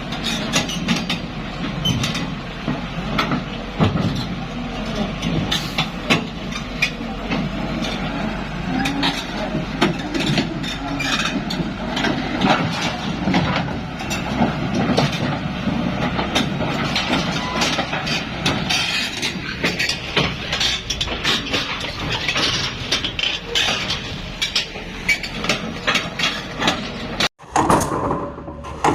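Construction-site machinery: an engine running steadily under frequent clanks and knocks, which cut off briefly near the end.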